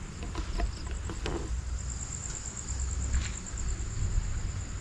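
Night insects chirring in a steady, high, pulsing trill, over a low wind rumble on the microphone. A few faint knocks and rustles come in the first second and a half, and a slightly louder knock comes about three seconds in.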